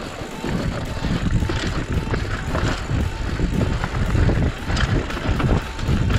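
Mountain bike rattling and jolting down a rough downhill trail: a constant rumble with many irregular knocks as it rides over bumps.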